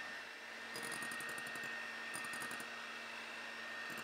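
Electric hand mixer running at low speed, its beaters turning through stiff meringue in a glass bowl to even out the air bubbles. A steady motor whine, with two brief bursts of high clicking about a second in and a little after two seconds.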